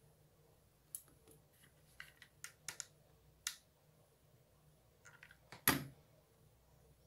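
Small clicks and taps of a hot glue gun and craft pieces being handled on a tabletop, about a dozen in the first half. A louder single knock comes near the end, as the glue gun is set down.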